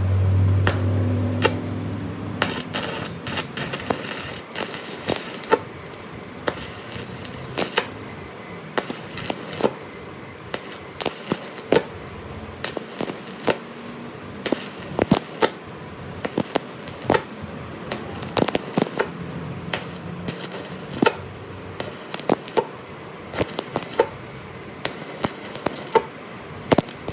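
Irregular sharp clicks and light knocks of hand tools and metal parts being handled, sometimes several in quick succession, over a low hum that fades out in the first two seconds.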